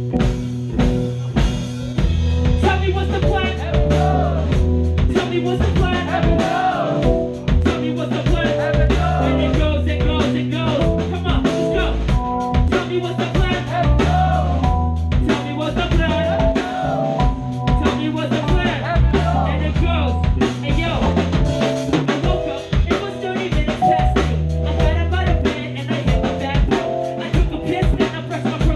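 Live band playing loud: a drum kit keeping a steady beat over a heavy bass line, with guitar and keys above.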